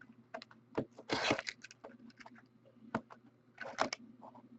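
Trading-card box packaging being opened by hand: wrapper and cardboard crinkling and tearing in short scraps among light clicks, with the longest tear about a second in.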